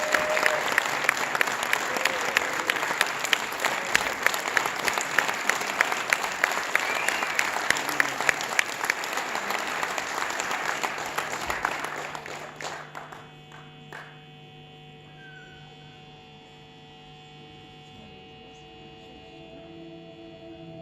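Concert audience applauding, with sharp claps close to the microphone. The applause dies away about two-thirds of the way through, leaving soft held musical tones as the song's intro begins.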